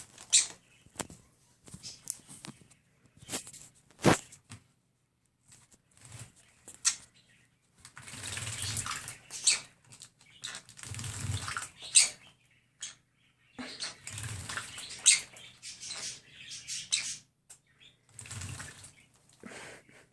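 Green-cheeked conure bathing, flapping its wings in the water in repeated splashing bursts of a second or two, with a few sharp knocks between them.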